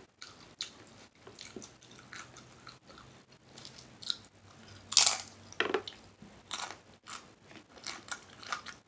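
Close-miked chewing and mouth smacking of a mouthful of shrimp salad, as irregular short wet clicks, with one louder smack about five seconds in.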